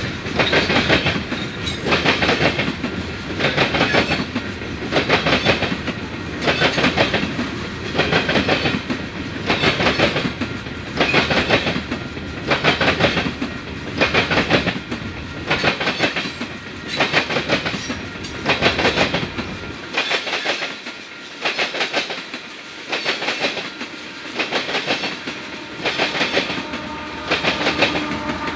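Loaded coal gondolas of a freight train rolling past, their wheels clacking over the rail joints in a steady repeating rhythm. Near the end a steady hum comes in from the distributed-power diesel locomotive in the train.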